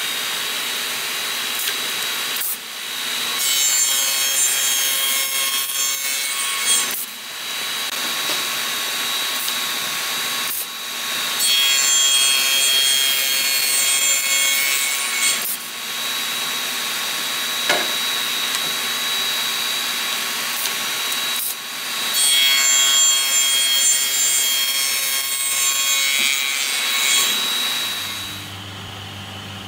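Spindle moulder (wood shaper) cutter head spinning with a steady high whine. Three times it cuts into a red hardwood board, each cut a few seconds of loud, rough cutting noise. The sound drops to a low hum near the end.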